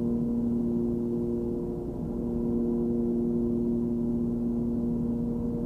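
Cessna 340's twin piston engines and propellers running steadily in level cruise, heard in the cabin as a constant drone with several steady tones.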